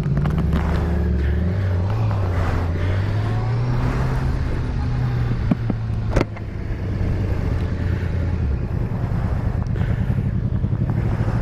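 Honda CBR600F inline-four engine running at low revs under the rider, its pitch rising and falling with the throttle, with wind noise over it. A single sharp knock comes about six seconds in.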